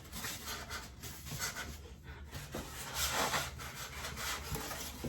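Cardboard packaging rubbing and scraping as a 27-inch iMac is slid out of its shipping box, in uneven bursts of rustling, loudest a little past the middle.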